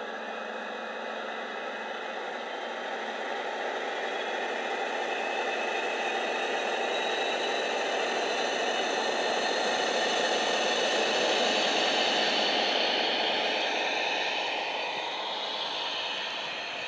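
Sound-fitted OO gauge Hornby Class 56 model locomotive running past, its slab megabass speaker playing a recorded Class 56 diesel engine sound. It grows louder as the locomotive comes close and fades near the end as the wagons follow.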